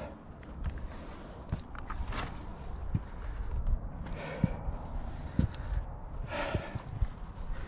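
Boots and hands scuffing and knocking on wet rock while scrambling, with a low rumble on the microphone. Three hard breaths come about two seconds apart.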